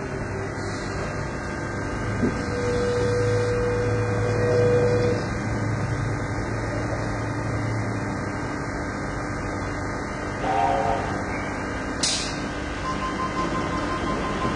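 Two steam locomotives approaching side by side on parallel tracks, a steady low running sound with whistle notes: a long single note a few seconds in and a short several-toned toot about ten seconds in.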